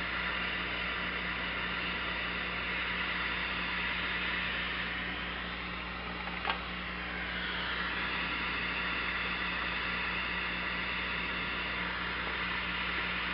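Butane micro torch hissing steadily as it heats solder, with a single sharp click about six and a half seconds in. A low steady hum runs underneath.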